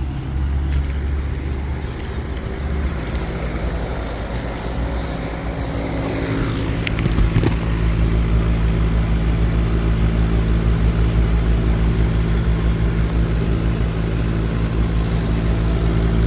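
Air-conditioning condenser unit running with a steady electrical hum. About seven seconds in it grows louder, with a low pulsing rumble.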